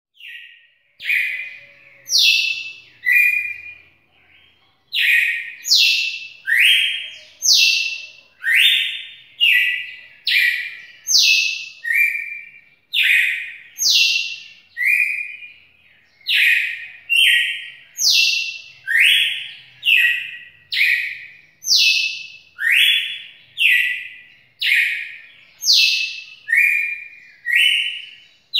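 Red-cowled cardinal (galo-de-campina) singing: a long run of loud, clear whistled notes about one a second, alternating higher and lower, with a short pause about four seconds in.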